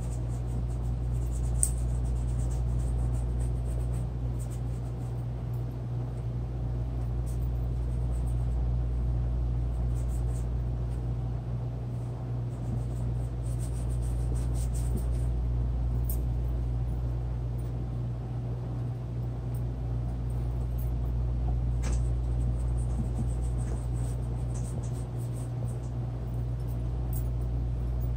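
A steady low hum, with faint light scratches now and then, the clearest about two seconds in and again a little past twenty seconds.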